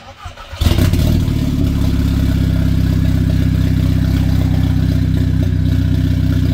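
Audi TTS's turbocharged 2.0-litre four-cylinder engine starting with its exhaust open at the downpipe, the stock cat-back removed. It catches about half a second in, then idles loud and steady.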